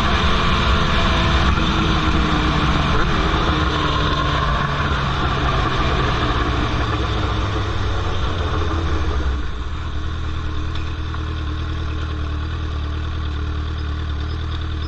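Straight-piped 2003 Yamaha R1 inline-four engine with revs falling steadily as the bike slows, settling to a steady idle at about nine seconds.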